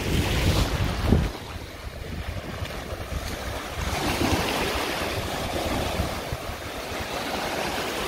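Small waves washing onto a beach, with wind buffeting the microphone, heaviest in the first second or so.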